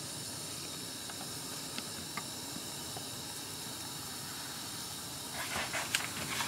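Steel bolts fizzing in hot parkerizing (phosphating) solution: a steady hiss of fine bubbles streaming off the metal, with a few faint ticks. The fizzing shows the coating reaction is still working. A few brief handling noises come near the end.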